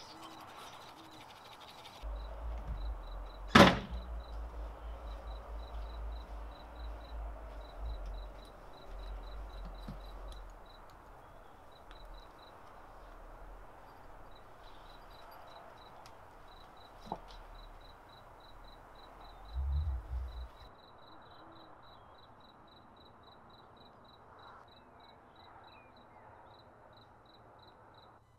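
Toothbrush scrubbing for the first two seconds, then a single loud knock about three and a half seconds in over a low rumble. Through the rest, a high chirp repeats evenly about three times a second, with a small click and a low thump near the middle.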